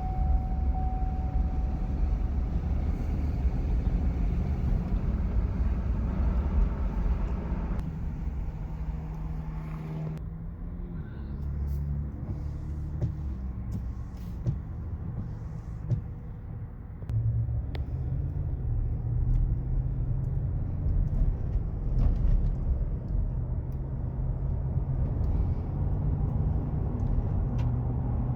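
Chevrolet Suburban V8 running with a steady low rumble and no lifter tick, its oil pressure restored to normal after the lifter-noise repair.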